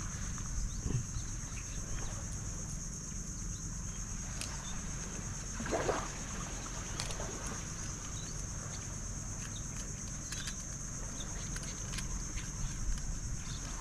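Small fishing boat's engine running steadily at low revs, a low drone, with a steady high-pitched hiss above it and a couple of brief swishes about one and six seconds in.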